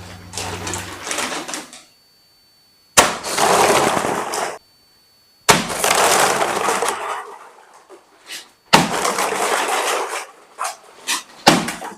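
A sudden loud crash followed by clattering, three times, each cut off abruptly; the sound of objects being knocked over and smashed by blasts from a homemade air cannon.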